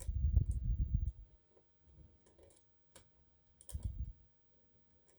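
Lock picks working inside an Adamant pin lock: scattered small clicks from the pins and tools, with low rumbles of the lock being handled during the first second and again about four seconds in.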